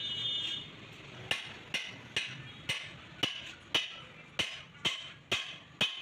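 Hammer blows on steel, about two a second, each with a short metallic ring, starting just over a second in: the centre pin of a Mahindra 575 DI tractor's front axle being driven into its bore.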